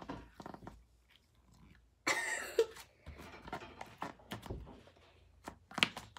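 Slime squishing and popping under a bare foot as it presses on and lifts off: a run of wet clicks and crackles, loudest about two seconds in.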